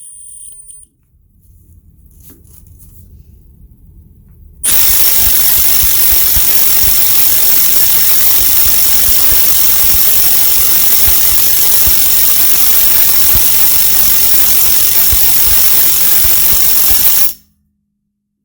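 Milwaukee M18 2860 mid-torque cordless impact wrench on speed 3, hammering continuously into a Skidmore torque tester for about twelve seconds. It starts abruptly a few seconds in and cuts off suddenly near the end, with a steady high motor whine over the rapid blows.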